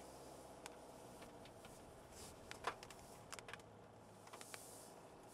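Quiet cabin of a SsangYong All New Rexton driving slowly: a low, steady engine and road hum with scattered light ticks and taps, the sharpest about halfway through.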